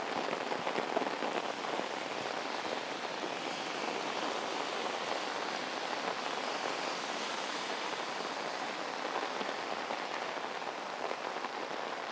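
Heavy rain pouring down steadily, an even, unbroken hiss of drops.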